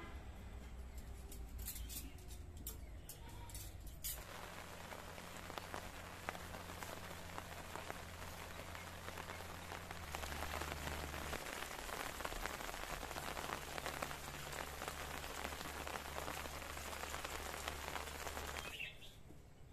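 Steady rain falling on leaves and wet ground, a dense even hiss that starts suddenly about four seconds in and stops abruptly just before the end.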